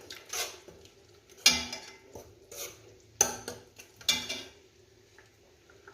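Metal spoon stirring food in a pot, clinking sharply against the pot about five times in the first four seconds, then going quiet.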